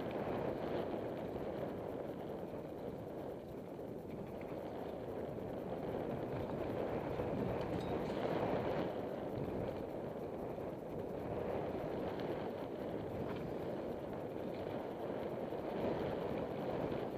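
Steady rush of wind over the camera microphone mixed with knobby mountain-bike tyres rolling over a dirt singletrack during a fast descent, with a few faint knocks from the bike over bumps.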